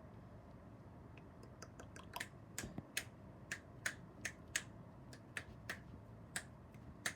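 A run of sharp, light clicks or taps, about two or three a second at irregular spacing, starting about a second and a half in, over a faint steady hiss.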